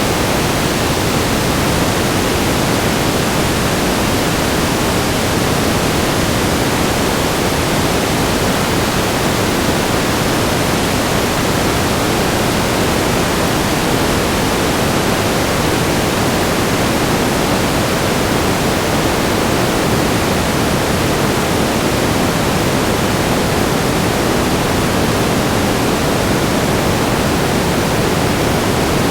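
Steady static noise: an even, unchanging hiss with a fuller low-mid rush, spread across the whole range.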